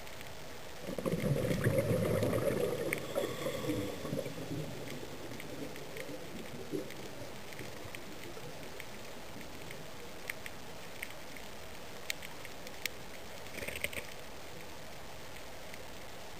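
Underwater reef ambience: a steady hiss, with a low gurgling rush starting about a second in and fading over about three seconds, then a few scattered sharp clicks near the end.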